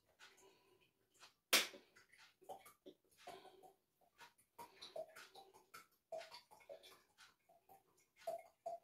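Cooking oil poured from a bottle into a jar, glugging: a faint, irregular run of short gurgles and small clicks.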